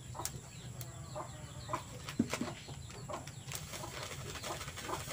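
Chickens clucking intermittently, with scattered sharp clicks and taps.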